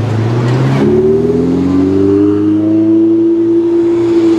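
Ferrari 488 GTB's twin-turbo V8 accelerating away: a low engine note, then about a second in the pitch climbs steadily for a couple of seconds and levels off.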